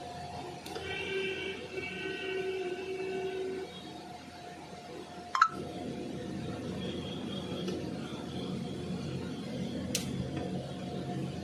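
A multi-tool pocket knife's tool snapping into place with one sharp click about five seconds in, and a lighter click near the end, over a steady hum and some faint beep-like tones in the first few seconds.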